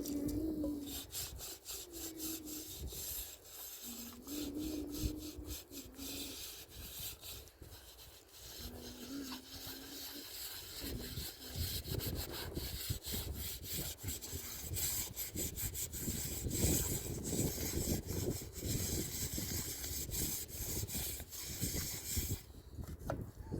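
Repeated rasping strokes of something rubbed or drawn hard across a surface, growing denser and louder in the second half, with a few short low tones in the first ten seconds.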